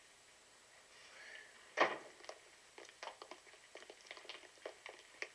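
A single thud about two seconds in, then light, irregular taps of footsteps on a hard floor as people walk into a room.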